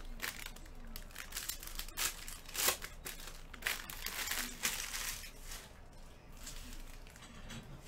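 Plastic trading card pack wrappers crinkling as packs are torn open and handled, in a run of quick rustling bursts that thins out after about five seconds.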